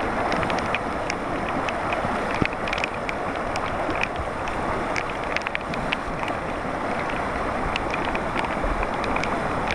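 Rain-swollen creek rushing steadily, with scattered short sharp ticks throughout.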